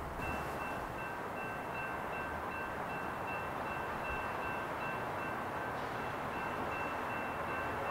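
A warning bell ringing a fast, even string of identical electronic-sounding dings, over the steady rush of an approaching freight train.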